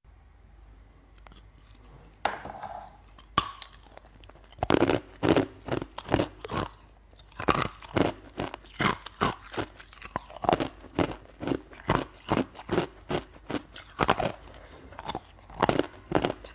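Close-up crunching and chewing of a hard, brittle translucent treat: a bite about two seconds in, then steady crunches about two or more a second.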